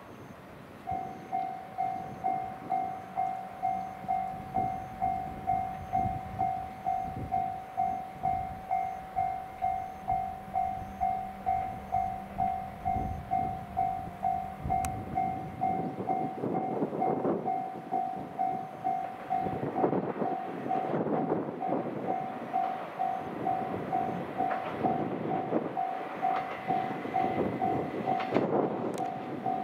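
Railway level-crossing bell ringing evenly at about two dings a second, starting about a second in. From about halfway the single-car KiHa 120 diesel railcar's running noise grows louder as it approaches.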